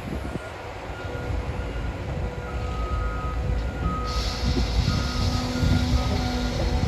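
Cat 325 hydraulic excavator running at work, a steady low diesel rumble, with short alarm beeps repeating at irregular intervals. A hiss joins about four seconds in.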